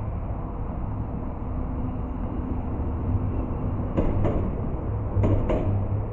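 Trams running on street track: a steady low rumble, with two pairs of sharp clacks about a second apart in the second half.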